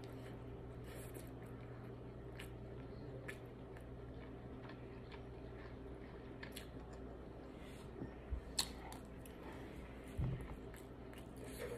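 Faint chewing of a mouthful of shrimp fried rice, with small mouth clicks over a steady low hum. A few louder short knocks come about eight and ten seconds in, as the plastic fork works the paper plate.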